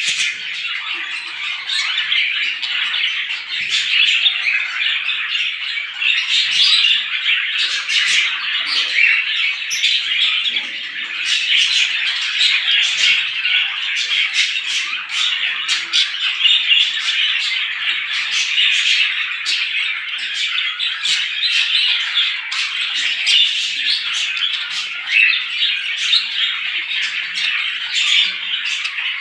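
A crowd of small birds chirping and chattering all at once, a dense, unbroken chorus of overlapping calls.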